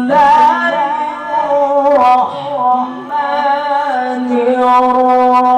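A man's high voice chanting Quranic recitation in the melodic tilawah style, holding long ornamented notes that waver and step between pitches.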